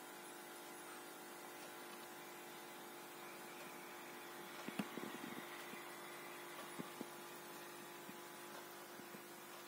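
Steady, quiet electrical hum of aquarium equipment, made of several steady tones, with a short run of soft knocks about halfway through and a couple more a little later.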